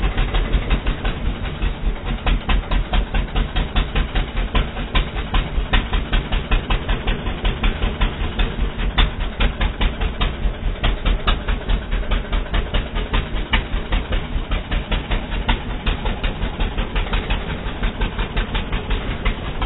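ATV (quad bike) engine running steadily, with an even pulse of about four beats a second.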